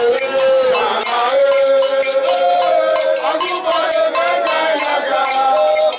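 Crowd singing in chorus, with a metal bell struck in a quick, steady beat.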